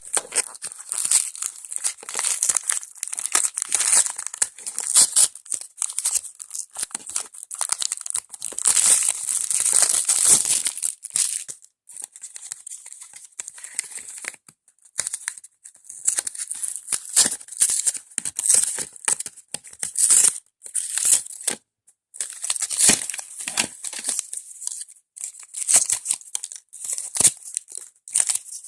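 Shopkins toy packaging being torn open and crinkled by hand: irregular bursts of crackling and tearing with brief pauses between.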